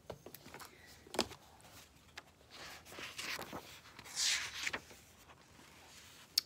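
Pages of a small booklet being leafed through: soft paper rustles and light taps, with a longer swish of paper about four seconds in and a sharp click near the end.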